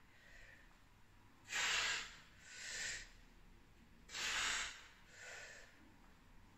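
A woman breathing hard with effort while exercising: heavy breaths in pairs, a loud one followed by a softer one, twice, about a second and a half in and again about four seconds in.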